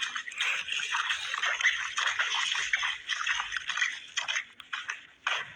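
Floodwater rushing and splashing in a steady, continuous wash of water noise.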